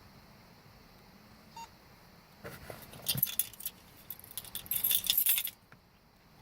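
A bunch of car keys jangling as they are handled, in two bursts: one about two and a half seconds in and a louder one about four and a half seconds in.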